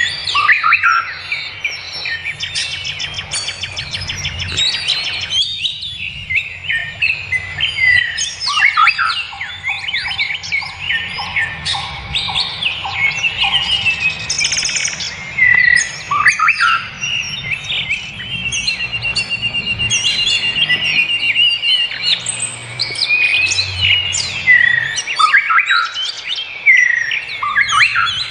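Several forest birds singing and calling at once, a dense chorus of chirps, whistles and rapid trills.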